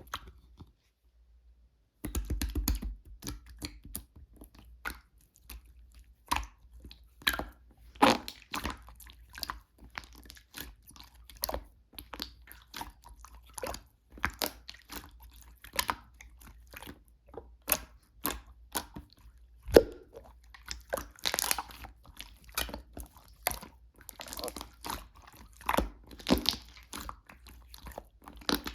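Hands playing with slime, squishing and poking it, after a silent start about two seconds in. The slime gives a dense, irregular run of crackling pops and clicks.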